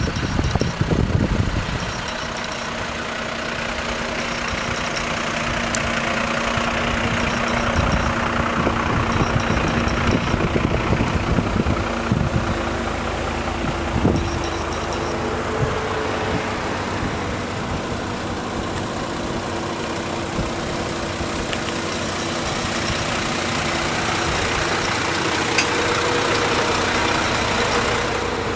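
Diesel engines of parked fire engines idling, a steady engine hum with a few low thumps near the start and midway.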